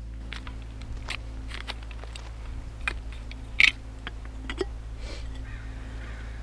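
Handling noise from hands working at objects: a run of short clicks and scrapes, with a sharper, louder click about three and a half seconds in, over a low steady hum.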